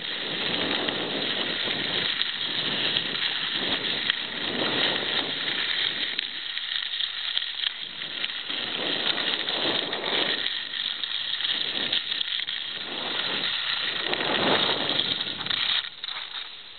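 Skis hissing and scraping over packed snow while skiing down a groomed run, with wind rushing on the microphone; the noise swells and fades every second or two as the skis turn, then drops off near the end as the skier slows.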